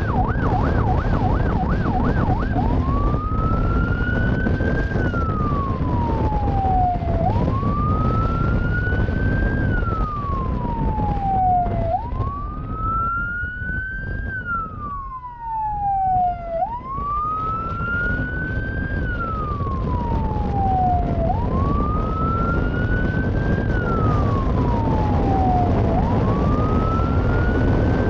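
Police motorcycle siren switching from a fast yelp to a slow wail about two and a half seconds in, the wail rising and falling about every five seconds, over a heavy low rumble of wind and engine. A second siren sounds faintly midway.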